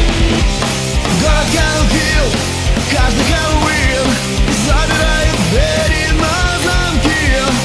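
Loud rock music in an instrumental passage: distorted band with drums, and a melodic lead line that bends and wavers over it.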